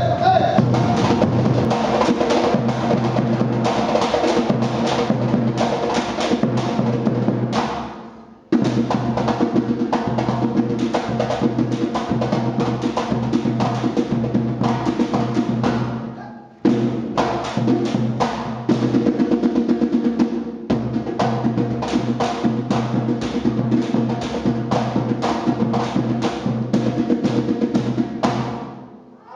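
Drums of a live Afro-Brazilian percussion group playing a fast, dense rhythm. The drumming breaks off briefly twice, about 8 and 16 seconds in, and dies away near the end.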